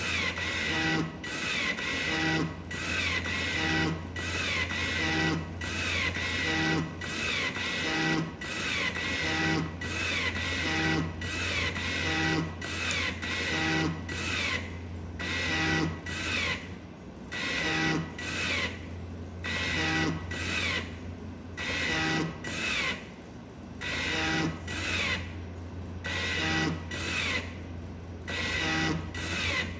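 Home-built motor-driven ventilator cycling through rapid breaths in a steady rhythm, about one a second, over a steady low hum, with the open extension tube sounding on each breath. The pace slows a little about halfway through.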